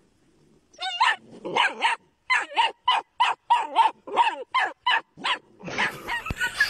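A puppy yipping: a quick run of about fifteen short, high yips, about four a second. A rougher noise takes over near the end.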